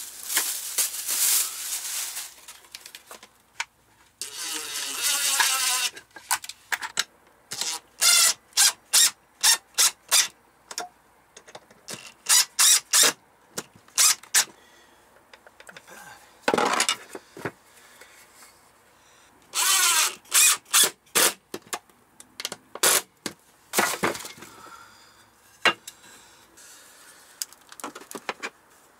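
A plastic shopping bag rustles at first. Then a cordless drill runs in repeated short trigger bursts, its motor whining up and down as it drives screws into pine boards, with several quick runs of bursts.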